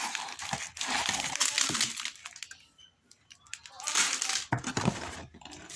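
Plastic candy and snack wrappers crinkling as they are handled. It comes in two spells of crackling with a short quiet pause in between.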